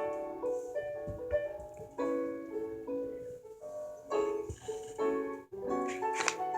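Piano music: a short tune of held notes and chords, with a brief break about five and a half seconds in.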